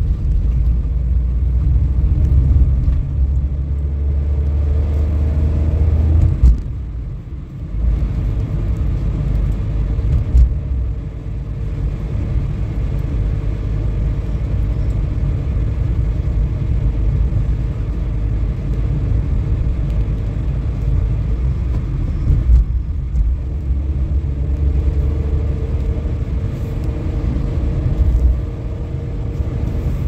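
Car running on the road, heard from inside the cabin: a steady low rumble of engine and tyres that eases briefly about seven seconds in and again near the end.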